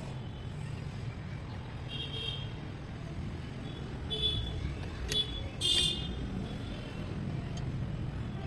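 A steady low engine rumble with a few short high-pitched chirps about two, four and six seconds in, the last the loudest.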